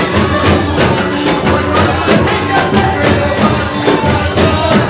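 Loud live worship music with a jingle tambourine being shaken and struck in rhythm, and hands clapping along on the beat.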